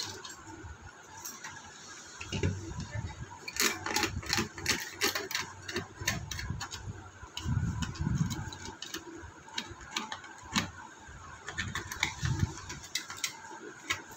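Irregular clicks and light scraping from a small tool and fingers working at the plastic case and battery compartment of a digital hanging weight scale, with duller rubbing and knocks as the scale is handled.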